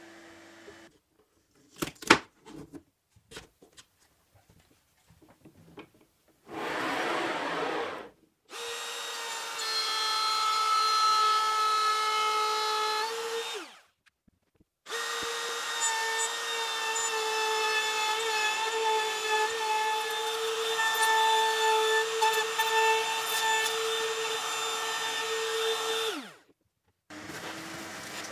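Circular saw in a homemade panel saw cutting a wood panel: two runs of steady motor whine, about five and eleven seconds long, each winding down in pitch as the saw is switched off. A few sharp clicks come before the cuts, and a vacuum hose hums briefly at the start and end.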